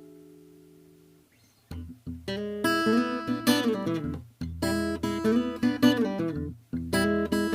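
A 1968 Yamaha S-70 acoustic guitar: a chord rings out and fades away, then about two seconds in a new passage of picked notes and strummed chords starts, with two brief pauses.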